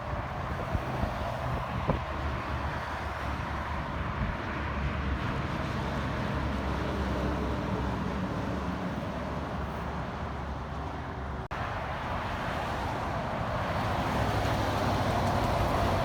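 Road traffic going by: a steady drone of engines and tyres, with a brief break about two-thirds through and a vehicle getting louder near the end.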